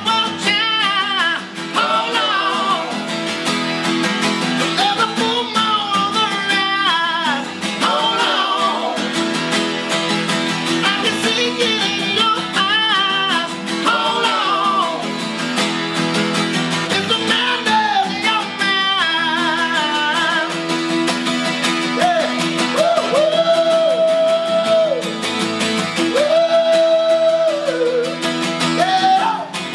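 Two acoustic guitars strummed together while a man sings a song over them. Near the end he holds two long notes.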